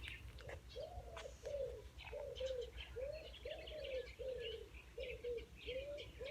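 A large pigeon-like bird giving a run of short, low, hoarse calls, about two a second, each rising and falling briefly in pitch, like someone coughing over and over. Faint high chirps of small birds sound above them.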